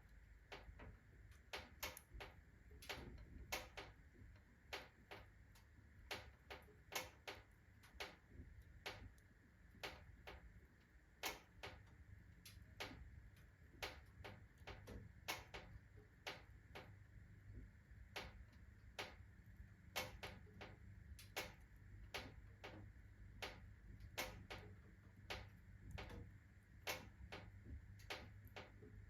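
Iron fireplace stove ticking and clicking irregularly, about one or two sharp clicks a second, as the fire takes hold and the stove's iron expands with the heat.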